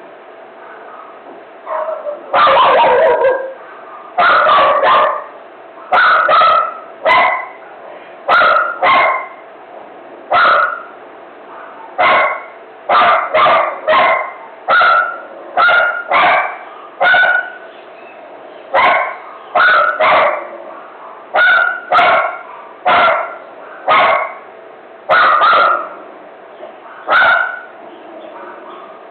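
A dog barking over and over in a frenzy, loud barks about once a second, often in quick pairs, starting about two seconds in and going on until near the end.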